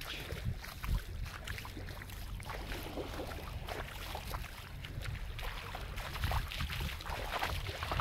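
Seaside ambience at the water's edge: a steady low rumble of wind on the microphone, with soft, irregular little splashes of calm water lapping at the shore.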